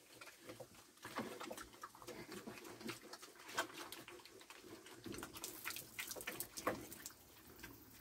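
Young pigs eating from a tyre feeder: quiet, irregular chomping and smacking as they chew, somewhat busier about five to seven seconds in.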